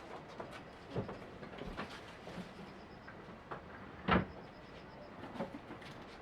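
Irregular knocks and rattles over a steady hiss, with a louder thud about a second in and another about four seconds in.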